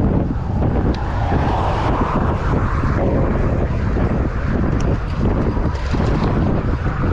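Wind rushing over the microphone of a moving road bike: a loud, fluttering low rumble.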